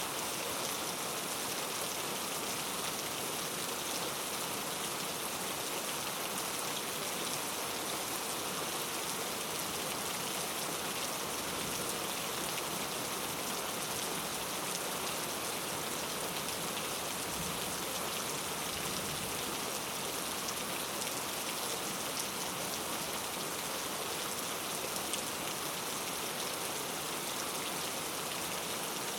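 Steady rain falling on rainforest foliage, an even hiss of many drops with no let-up.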